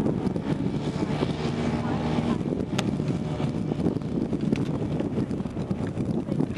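The Zenoah G-62 two-stroke gasoline engine of a large RC Cessna 182 model runs steadily at taxi power, turning a three-bladed carbon propeller as the plane rolls across grass.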